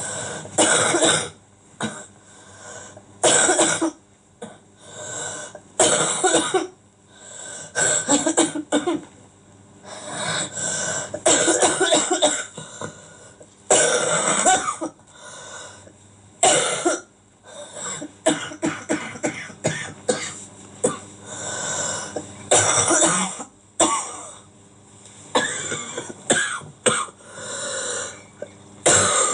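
A person coughing hard and repeatedly in harsh fits, one every second or two, with throat clearing between. The coughing is voiced as a violently sick character.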